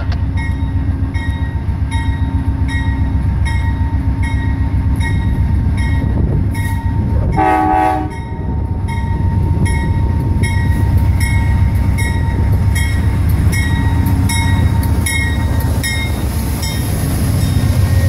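Amtrak GE P42DC diesel locomotive approaching and passing close by with a low engine and rail rumble, its bell ringing about twice a second throughout. A brief horn toot sounds about seven and a half seconds in, and the rumble grows louder near the end as the locomotive goes by.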